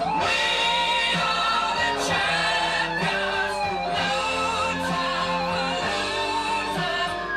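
Multitracked rock recording played back: layered, choir-like vocal harmonies held over guitar and a steady beat.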